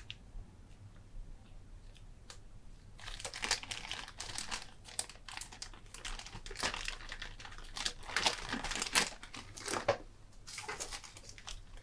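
Plastic bags of model kit parts being handled, crinkling. The first few seconds are quieter with a few light clicks, and then the crinkling comes in steady irregular handfuls.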